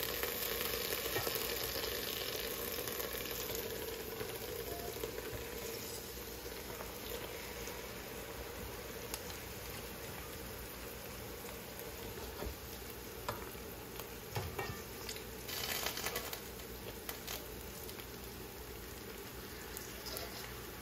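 Sliced onion, green chili and garlic frying in oil in a stainless steel pan: a steady sizzling hiss, a little louder at the start, with a few soft clicks in the second half.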